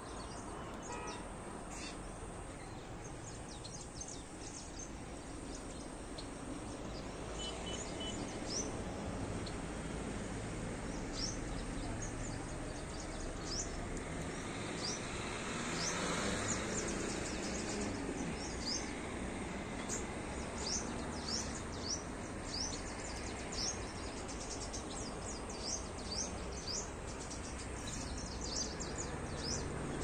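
Small birds chirping in short, high, repeated notes, growing more frequent after the first few seconds, over a steady outdoor background hum. Around the middle, a broad rush of noise swells and fades.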